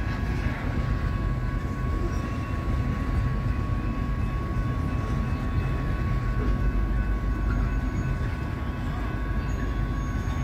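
Freight train of tank cars rolling past: a steady low rumble of steel wheels on rail, with a thin steady high whine over it.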